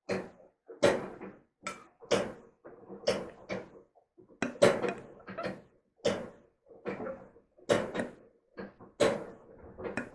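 Close-up eating noises: wet chewing and mouth smacks of buckwheat and steamed zucchini, one or two a second, with a fork tapping and scraping on a plate.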